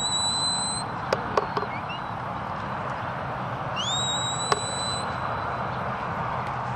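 Shepherd's whistle commands to a working sheepdog: a short whistle that rises and holds at the start, and a longer one that rises and then holds steady about four seconds in. A few sharp clicks come between them.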